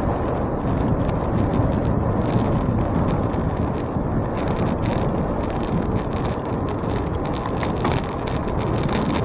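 Wind buffeting the microphone during a bicycle ride, a steady low rumble with scattered light rattling clicks.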